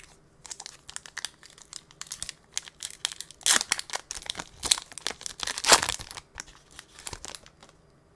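Foil wrapper of an Upper Deck hockey card pack crinkling and tearing as it is ripped open by hand, the loudest tearing in the middle. The crinkling dies down near the end as the cards come out.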